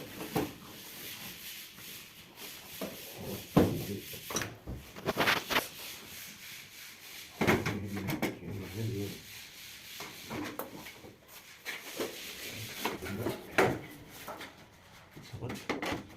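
Rubbing and scraping handling sounds with scattered sharp knocks and clicks, the loudest about a third of the way in, halfway through and near the end, with a brief murmur of speech about halfway through.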